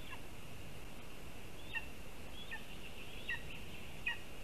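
Lesser spotted eagle chick calling: a series of about five short, high calls, several of them dropping in pitch.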